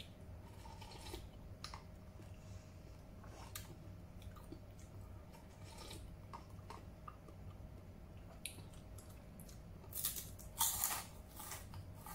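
Quiet eating sounds from a person spooning hot soup from a paper cup: small clicks of a plastic spoon against the cup and soft chewing, with a couple of louder slurping sips about ten to eleven seconds in.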